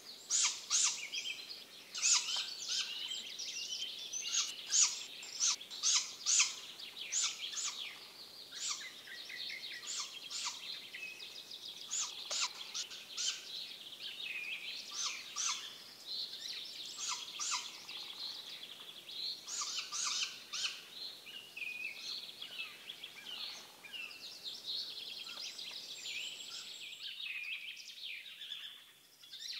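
Many short, high-pitched bird calls and chirps in quick succession, sharpest and loudest in the first several seconds, then softer and more run-together.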